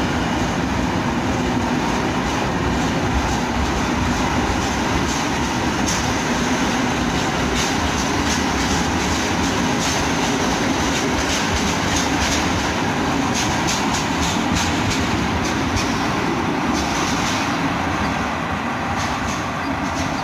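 PKP Intercity passenger train pulling out of the station past the platform: a steady rumble of the coaches rolling by, with runs of rapid wheel clicks over the rail joints. The sound fades near the end as the last coach moves away.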